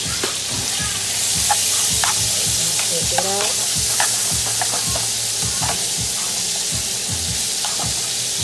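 Strips of beef sizzling in hot butter in a skillet, with a spoon clicking and scraping as the meat is stirred around the pan. The sizzle grows louder about a second in.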